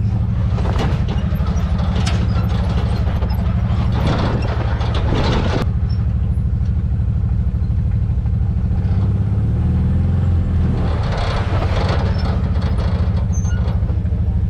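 Side-by-side UTV engine running steadily under the rider, with several louder rushes of noise over it.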